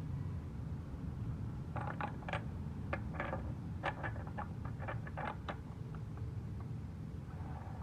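A quick run of a dozen or so sharp metallic clicks and clinks, like parts and tools being handled during a gearbox rebuild, from about two seconds in until past the middle. A steady low hum lies under it throughout.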